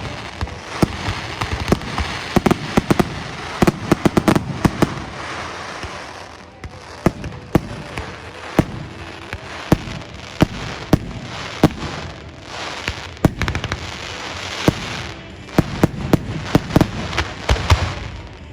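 Aerial fireworks display going off: many sharp bangs in quick clusters over a continuous crackling hiss from bursting shells.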